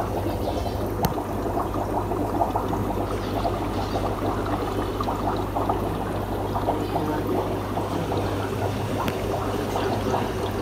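Aquarium sponge filter bubbling: a steady, dense trickle of small bubble pops in the water, over a steady low hum.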